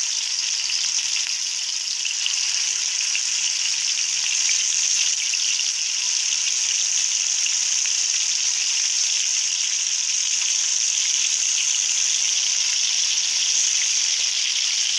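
Marinated chicken pieces sizzling steadily in hot coconut oil as more pieces are laid into the pan.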